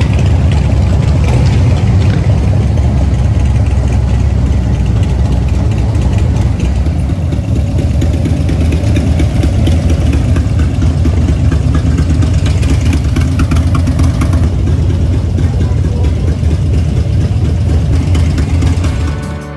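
A group of Harley-Davidson V-twin motorcycles running at low speed as they ride out in a line, a loud, steady low engine rumble.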